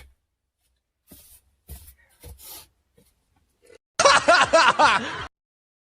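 A few faint scattered sounds, then about four seconds in a short burst of laughter in several quick pulses that cuts off suddenly.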